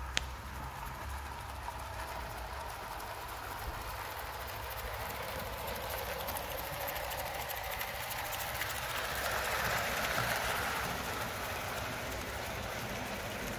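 Hornby OO gauge live steam model of an LNER A4 Pacific running along a garden track with its coaches. The sound grows louder as the locomotive passes close about ten seconds in, then eases. There is one sharp click just after the start.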